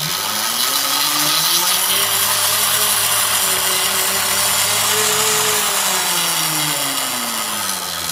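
Chain-driven 250-watt DC motor on an e-bike spun hard by the rear wheel as a generator, at a fast, downhill-like speed: a whine that rises in pitch over the first couple of seconds, holds, then falls away over the last two seconds, over a steady rushing noise. At this speed it generates about 14 to 16 volts.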